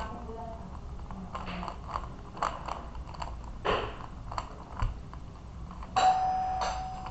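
Plastic Rubik's cube layers clicking and clattering as they are turned, in a quick run of short clicks; near the end a sudden sound with a ringing tone that lasts about a second.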